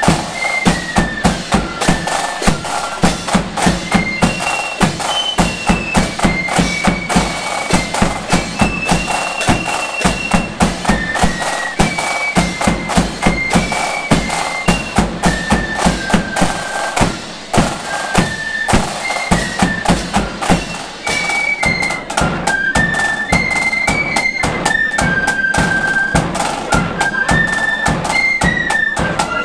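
A marching flute band playing: shrill flutes carry a stepping march melody over rapid snare-drum rolls and a heavy, steady bass drum beat.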